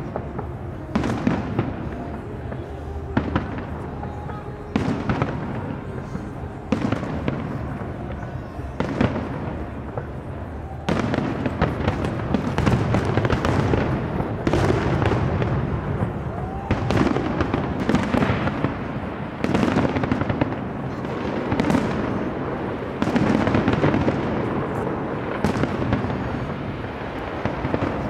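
Big fireworks display: repeated bangs with crackle trailing each, a second or two apart at first, then coming thicker and louder from about eleven seconds in.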